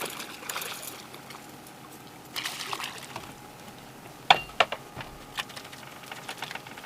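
Water splashing in two bursts as a hooked speckled trout thrashes at the surface, followed by a series of sharp knocks in the second half.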